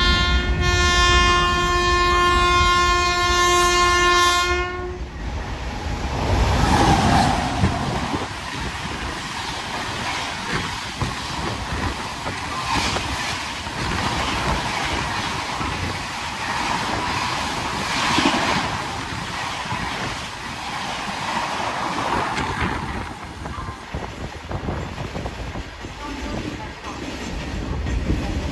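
A WAP-7 electric locomotive's horn sounds one steady note for about five seconds, then the express rushes through at about 130 km/h with loud wheel and coach noise and a recurring clatter, easing off after about twenty-three seconds.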